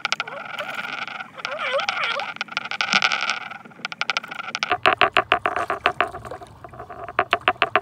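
A hooked catfish being reeled to the side of a kayak and lifted from the water, splashing. From a little before the middle there is a fast, even run of sharp clicks.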